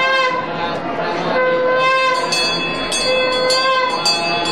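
A wind instrument sounds held, reedy notes about a second long, going back and forth between two pitches. From about halfway a bell rings over it, struck roughly twice a second.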